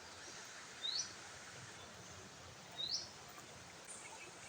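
A bird calling: a short, high, upward-sweeping note, twice, about two seconds apart, over faint steady outdoor background noise.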